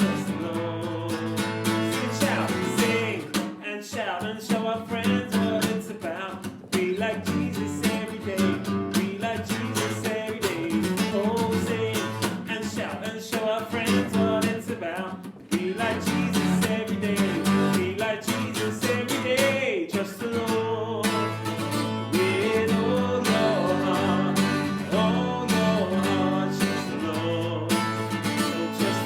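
A worship song with strummed acoustic guitar and singing.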